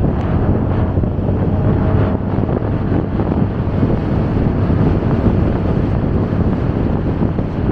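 Steady wind rush on the microphone of a moving motorcycle, with the motorcycle's engine and road noise underneath.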